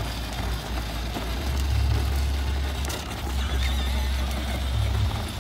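Battery-powered ride-on toy car driving along a rough path: a low, uneven rumble from its plastic wheels and small electric motor.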